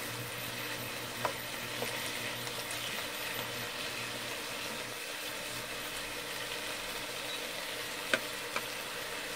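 Shrimp and sliced vegetables sizzling steadily in a frying pan over high heat while being stirred with a wooden spoon, with a few light knocks, one after about a second and two more near the end.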